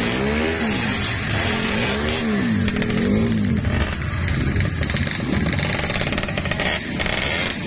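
Trail motorcycle engine revving up and down in repeated surges as the throttle is worked, turning rougher and less even in the second half.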